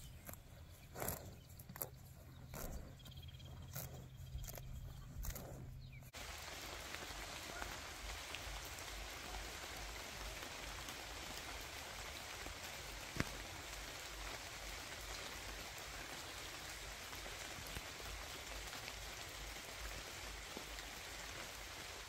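Steady rain falling on tree leaves, an even hiss that comes in suddenly about six seconds in, with one sharp drip-like tick in the middle. Before it there are a few scattered sharp snaps.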